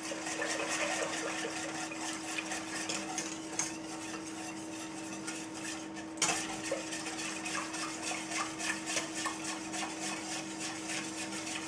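Wire sauce whisk beating and scraping against the inside of a stainless-steel saucepan in quick, continuous strokes, dissolving powdered poultry stock base into water. A steady low hum runs underneath.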